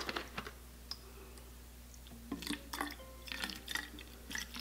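Rubbing alcohol poured from a plastic bottle into a glass bottle of aloe vera gel: faint gurgles and small clicks of the bottles being handled, starting about two seconds in.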